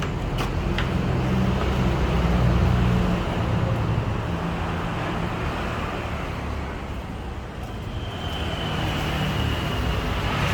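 Road traffic noise: a motor vehicle engine running close by, its low rumble swelling and easing. A thin, steady high whine comes in near the end.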